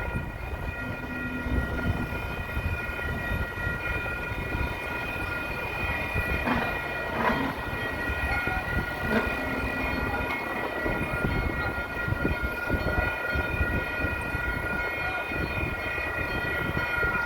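Union Pacific Big Boy 4014, a 4-8-8-4 articulated steam locomotive, running with a steady low rumble. Several high tones are held steadily throughout, with a few sharper accents about six to nine seconds in.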